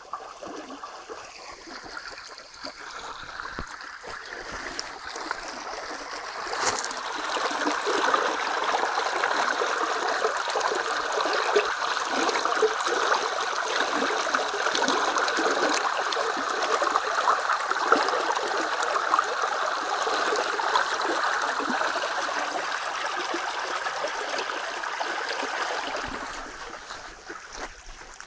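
Water flowing along a concrete irrigation channel, a steady rushing that grows louder about six seconds in and fades near the end.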